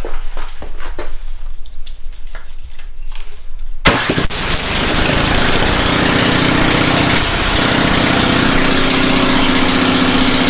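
Snowblower's small engine being cranked over in a quick series of strokes, then catching about four seconds in and running steadily on full choke. It fires right up after a carburetor cleaning that cured its no-start condition.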